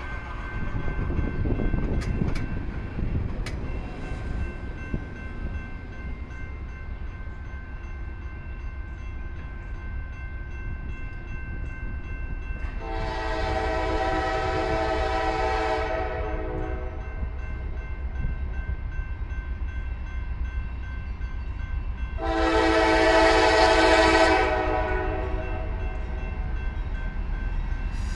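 Diesel freight locomotive's multi-chime air horn sounding two long blasts about ten seconds apart as the train nears a grade crossing, over a low steady rumble.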